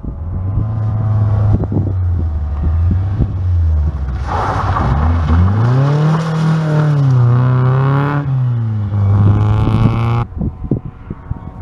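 Classic Toyota Celica rally car's engine running steadily as it approaches, then revving up about five seconds in as it accelerates past on a dirt road, with a hiss from the tyres on the loose surface. The engine eases off again, and the sound cuts off abruptly about ten seconds in.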